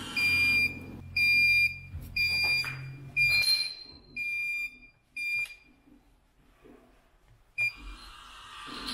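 Neptun Smart leak-protection control module sounding its leak alarm: a high-pitched beep about once a second, six times, which then stops. One short beep follows near the end. The alarm means a wetted leak sensor has tripped the system and shut the water valve.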